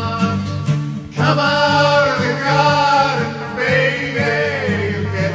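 Rock song playing with no words: a band with a steady bass line under a melody line that bends and slides in pitch, and a couple of sharp drum hits about a second in.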